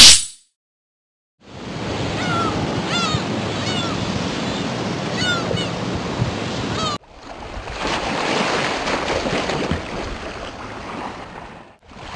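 Ocean surf washing, with a few short chirps over it in the first half. The surf breaks off abruptly partway through, resumes, fades out near the end and comes back in.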